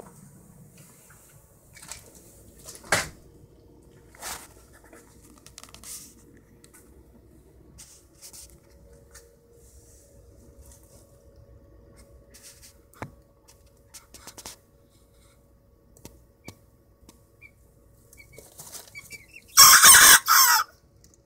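A young Old English Game bantam cockerel, about two months old, gives one short, hoarse crow in two parts near the end. Before it there are only faint scattered rustles and knocks.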